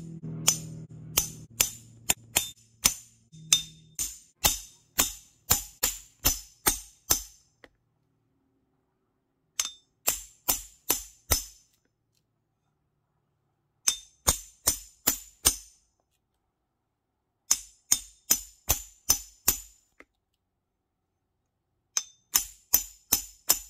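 A steel hammer repeatedly striking the back of an axe head, driving it into a log to split it: sharp metallic clinks about two a second, in short runs broken by pauses.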